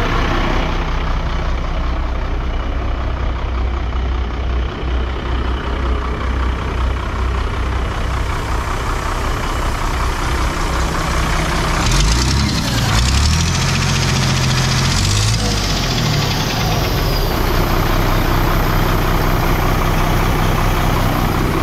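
1997 Ford LN8000 truck's turbocharged inline-six diesel engine idling, revved twice around the middle, the pitch rising and falling back to idle each time.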